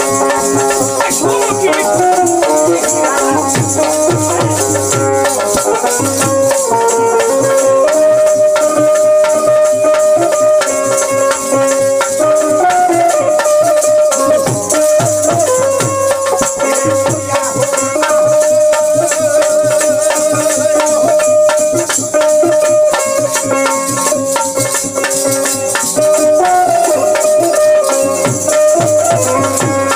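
Instrumental Bhojpuri folk music: a harmonium plays a melody of held notes over dholak drum strokes, and kartal clappers with metal jingles rattle steadily.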